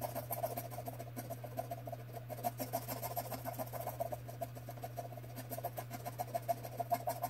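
Scratch-off lottery ticket being scratched, rapid short scraping strokes across the card's coating.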